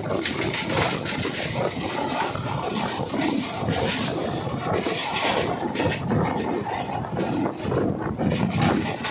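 Train passing at a level crossing, a continuous rough rumble of wheels and wagons on the rails.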